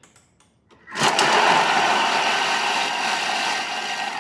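Thermomix blender blades chopping quartered onion and dill pickles at speed 6: a loud, steady whirring churn that starts about a second in and runs for about three seconds, after a few light clicks.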